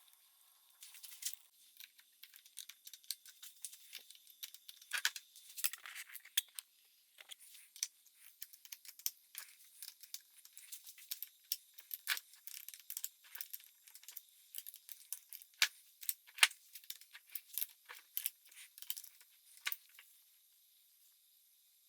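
Irregular sharp metallic clicks and clinks of hand tools on the engine while the cylinder is fastened down, a few of them louder knocks.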